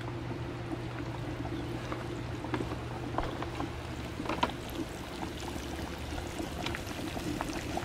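Bass pieces deep-frying in a cast-iron pot of hot oil: a steady sizzle with scattered crackles and pops.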